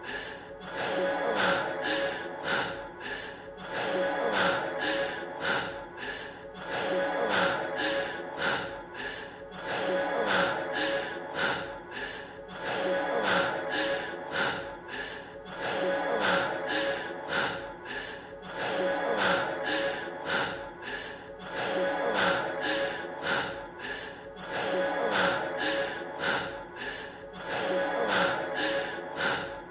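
A man's heavy, quick panting breaths over the steady tail of a song's music. It is a short looped clip, so the same breathing pattern repeats about every three seconds.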